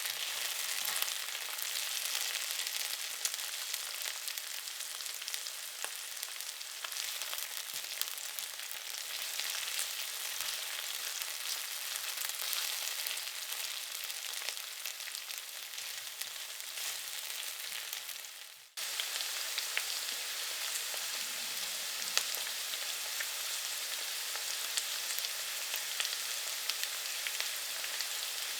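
Food frying in hot oil: a steady sizzle full of dense, fine crackling. About two-thirds through it dips out for a moment and starts again at the same level.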